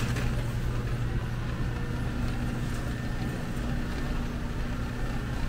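Metal shopping cart rolling over a concrete floor, over a steady low hum.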